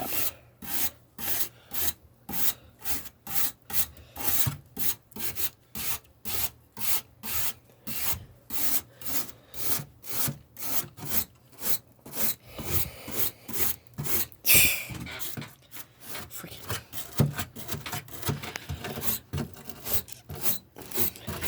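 Wire brush scrubbing a clogged air conditioner coil, scraping out packed dirt in quick, regular strokes, about two to three a second, with one louder scrape about two-thirds of the way through.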